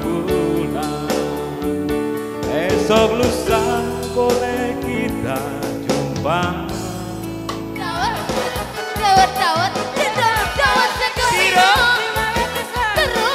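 Live band music: a woman sings into a microphone over chords played on a Yamaha electronic keyboard.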